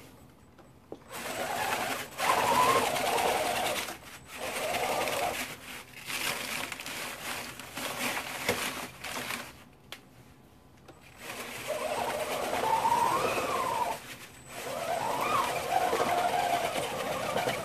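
A 3D-printed RC snowcat's drive motor and belt transmission whining in several bursts, the pitch rising and falling with the throttle, while it carries two 24-packs of bottled water as a test load.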